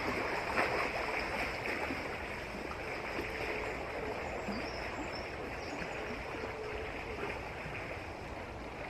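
River water running steadily, with a few small splashes in the first second or so.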